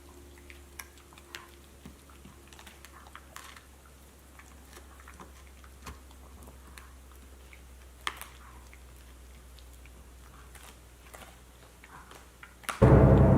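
Faint, scattered small clicks and crackles, with one sharper click about eight seconds in. Loud, eerie music starts abruptly near the end.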